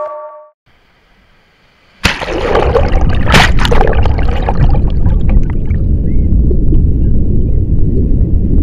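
Loud, steady rush of sea water, waves and surf, cutting in abruptly about two seconds in after background music fades out.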